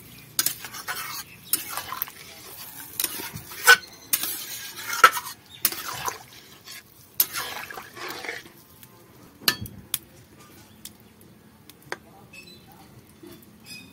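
Flat metal spatula stirring a thin curry in a steel kadai, scraping and clinking against the pan at irregular intervals. The strokes come thickly at first and only now and then in the last few seconds.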